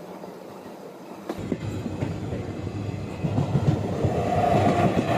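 Electric locomotive hauling freight wagons passing on the adjacent track, heard from a moving train: the rumble and clatter of wheels on rails starts about a second and a half in and swells, loud by the end.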